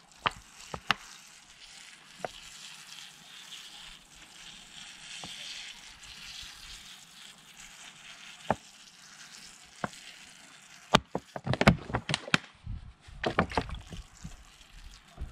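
Water sprinkling from a small watering can's rose onto compost in a plant pot, a steady faint spatter. Scattered clicks, and a run of louder knocks and taps about eleven seconds in.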